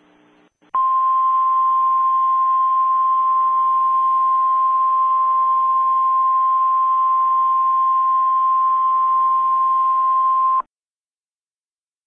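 Emergency alert attention tone: a single steady, high-pitched beep held for about ten seconds over a band of static hiss. It starts just under a second in and cuts off sharply.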